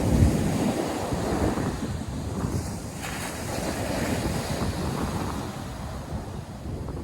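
Ocean surf breaking and washing on the shore, with wind buffeting the microphone in low gusts, loudest just after the start.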